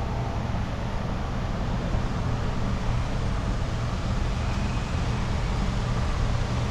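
A steady, low engine hum under a constant wash of noise, without a break.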